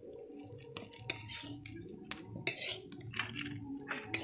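Metal ladle and spoon clinking and scraping against a steel wok in quick, irregular strokes.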